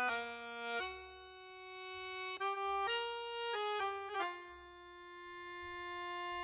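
Instrumental background music: a slow melody of long held notes, changing pitch every second or so.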